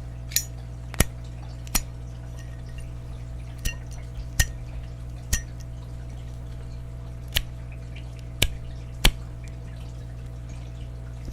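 About ten sharp clicks at irregular intervals, a second or more apart, over a steady low hum.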